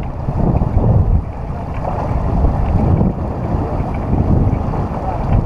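Wind buffeting the microphone aboard a sailing yacht under way, a gusting low rumble that swells and eases, with the wash of water beneath it.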